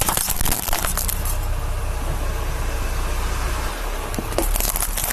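Plastic forks and knives cracking and snapping under a car tyre as it rolls over them, with a cluster of cracks at the start, a quieter crunching stretch, and more cracks near the end. A steady low engine hum runs underneath.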